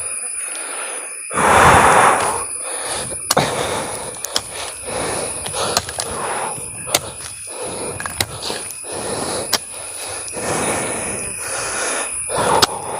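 Crackly rustling and scattered clicks from red cowpea seeds being shaken out by hand over loose, damp ploughed soil, with a louder rustling burst about a second in. A steady high insect drone runs underneath.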